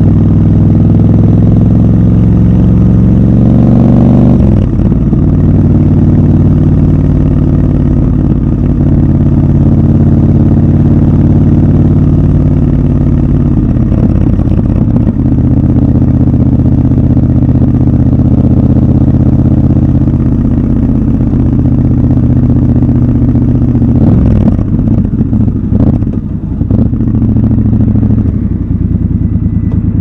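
Triumph Scrambler 1200 XC's 1200 cc parallel-twin engine on the move: the note climbs under throttle, drops at an upshift about four seconds in and again midway, then runs steady at cruising speed. Near the end the throttle closes and the note breaks up as the bike slows.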